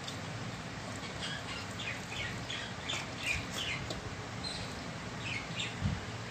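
Small birds chirping in many short, quick falling notes over a steady low hum, with a soft thump near the end.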